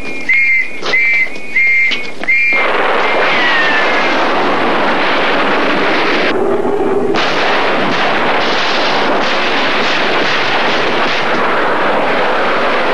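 Four short, shrill whistle blasts, then a sudden loud, steady hissing rush with a brief falling whistle just after it starts.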